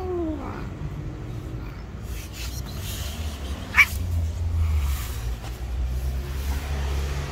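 A cat gives one short meow that rises and falls at the very start, over a steady low background rumble. A brief sharp sound comes about four seconds in.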